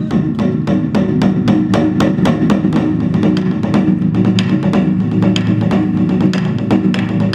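Korean traditional music accompanying a seungmu dance: fast drum strokes, about five or six a second, over sustained low instrumental tones.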